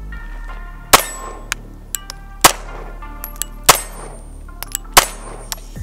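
FN 509 Tactical 9mm pistol firing four single shots, roughly one every 1.3 seconds, with a metallic ringing between the shots.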